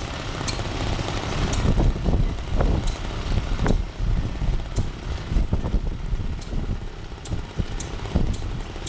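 Model stationary engines running: a steady mechanical chugging with irregular low thumps and occasional sharp clicks.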